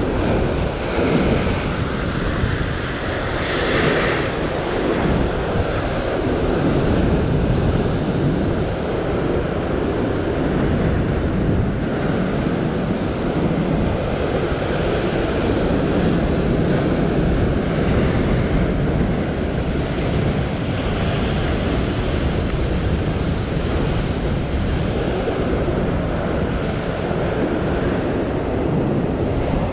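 Ocean surf breaking and washing over a rock shelf in a continuous rushing wash, with wind buffeting the microphone.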